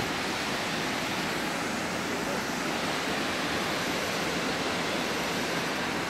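Steady, even rush of a tall two-tiered waterfall, a constant hiss of falling water with no breaks.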